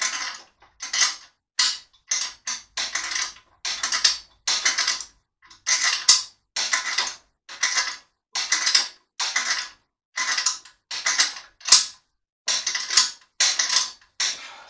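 A hand-worked loading mechanism creaking in short repeated strokes, roughly two a second, as load is applied to a post-tensioned 3D-printed test block.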